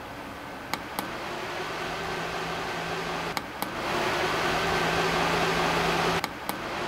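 Small rechargeable handheld fan running with a steady whir of air and motor hum. Its button clicks three times, each a quick double click. The airflow gets louder after the first two clicks and drops back after the third as the fan steps through its speed settings.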